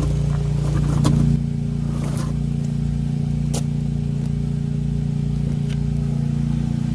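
A steady low mechanical hum, with a few sharp clanks about one, two and three and a half seconds in.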